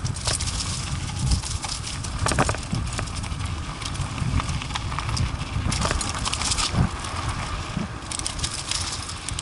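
ATV travelling over a rough dirt trail: irregular knocks and rattles as it bumps along, over a steady low rumble.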